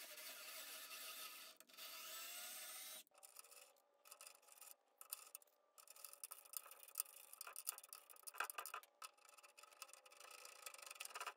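Faint rasping and scraping of a hand tap cutting threads into aluminum extrusion, with scattered small clicks of tool on metal.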